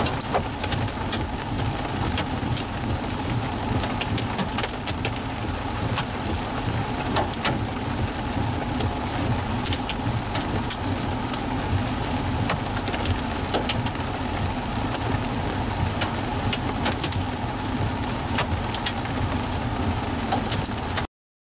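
Large hailstones, 1.25 inches and more, falling with heavy rain: a steady loud rush of rain with many sharp cracks of individual stones striking. It cuts off suddenly near the end.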